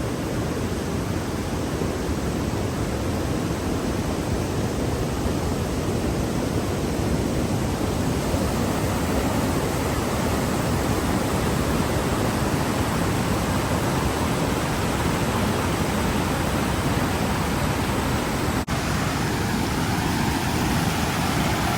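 A waterfall's steady, loud rush of falling water, with a momentary break in the sound near the end.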